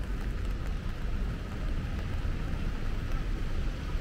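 Steady city street ambience in light rain: a low rumble of passing traffic under an even hiss from the rain and the wet street.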